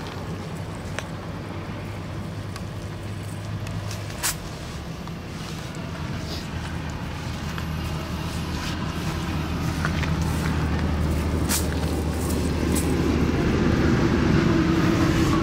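An engine running steadily with a low hum, growing gradually louder toward the end, with scattered sharp clicks and knocks over it.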